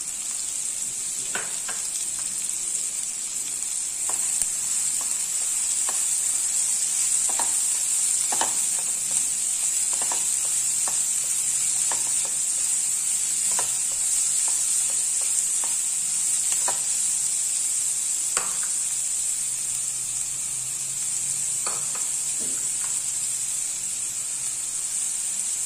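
Chopped vegetables sizzling as they sauté in hot oil in a non-stick pan, with a steady hiss. A spatula stirs and scrapes against the pan every second or two.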